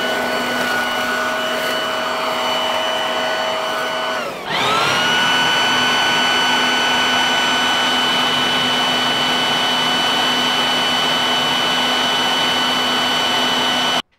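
Biltema corded electric leaf blower running flat out: the universal series-wound motor's high whine over the rush of air. The whine sags a little past four seconds in, spins straight back up to a steady pitch, and cuts off suddenly near the end.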